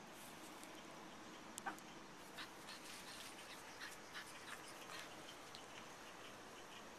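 Faint, scattered sniffs and soft rustles from a pug puppy nosing through grass.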